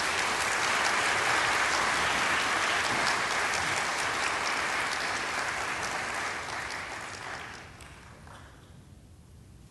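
Audience applauding, which dies away about eight seconds in.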